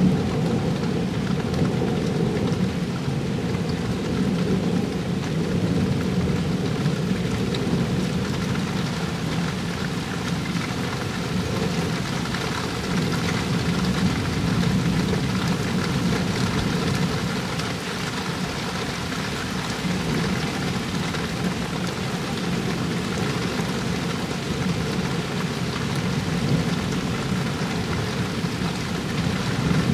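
Rain falling steadily in a thunderstorm, with low thunder rumbling through it.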